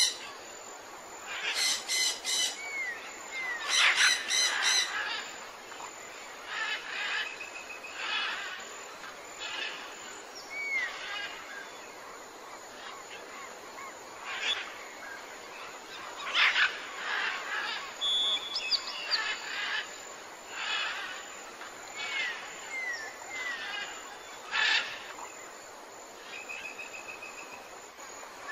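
Wild birds calling outdoors: irregular short chirps, repeated calls and brief upward-curving whistled notes, coming every second or two over a steady background hiss.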